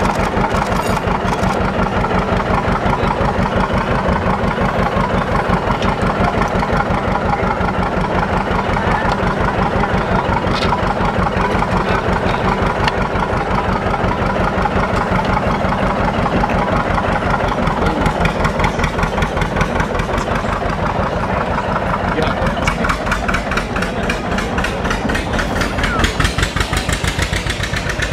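John Deere farm tractor engine running with a rapid, even firing beat. Near the end it grows louder and harsher as the tractor pulls a weighted box on a chain.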